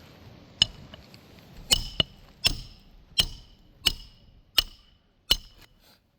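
Hammer driving roofing nails into a replacement asphalt shingle. About eight sharp strikes come roughly one every three-quarters of a second, each with a short metallic ring.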